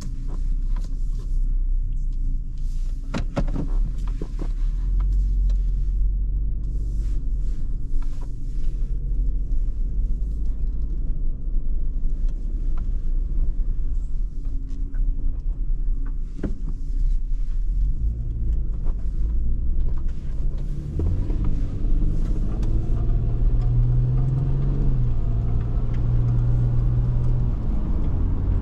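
Cabin sound of a 2007 Toyota 4Runner Sport Edition being driven: a steady low rumble of engine and road, with a few sharp knocks over the first several seconds. From about twenty seconds in, the engine note rises as the truck accelerates.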